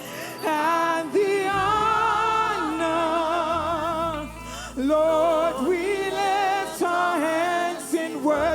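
Gospel worship song: a singer holds long notes with heavy vibrato and slides between pitches, over steady low bass notes.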